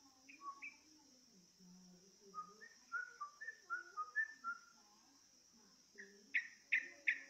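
Yellow-vented bulbul (trucukan) song: short, clear whistled notes stepping up and down in a quick run, then three louder, sharper notes near the end.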